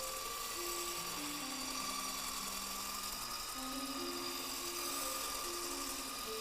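Cordless electric whisk motor running steadily at a constant high whine while whipping a mixture toward stiff peaks. Quiet background music with a simple melody plays underneath.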